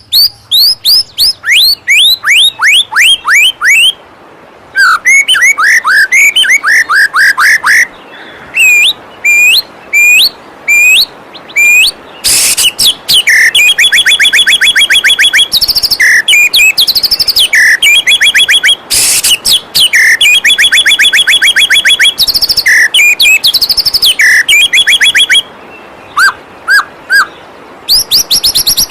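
White-rumped shama song: loud runs of quick downward-sweeping whistled notes, then long stretches of fast repeated trills, in phrases broken by short pauses, with a few short notes near the end. A steady rush of flowing waterfall water runs underneath.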